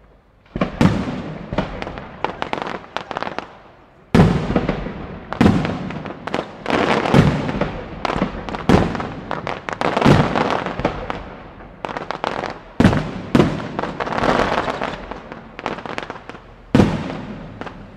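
Aerial fireworks display: shells bursting in a rapid series of loud booms, each trailing off, with clusters of smaller crackling reports between them.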